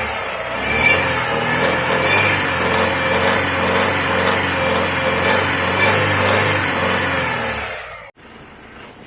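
Chevrolet Optra 1.6-litre four-cylinder petrol engine running steadily. The sound cuts off abruptly near the end, leaving a much quieter background noise.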